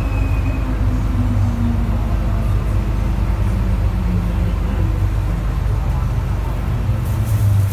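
MTR M-Train running through a tunnel, heard from inside the car: a steady low rumble of wheels and running gear on the track, with a faint hum from the motors.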